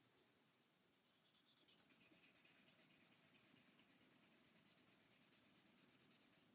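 Faint, quick back-and-forth rubbing of wet sandpaper on a guitar body's waterborne lacquer finish (Crystalac Brite-Tone), in even strokes that start about half a second in.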